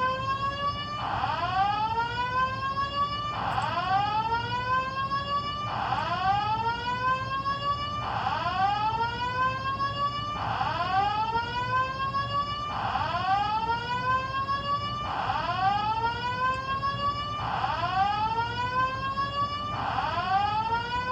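Apartment building fire alarm sounding its whoop tone: a rising sweep repeated nine times, a little over two seconds apart.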